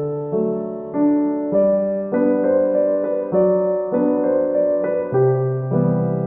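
Background piano music, gentle chords changing about once a second.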